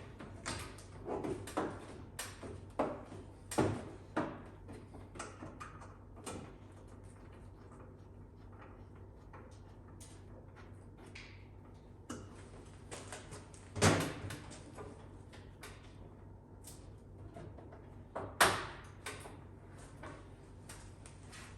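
Plastic body panels on a UTV door frame being handled and pressed back into place: a run of clicks and knocks, then later two louder sharp knocks about four seconds apart.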